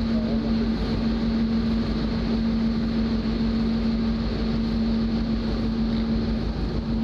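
Ship's engine machinery droning steadily, with a constant low hum over a rumble, heard from the deck of a work vessel at sea.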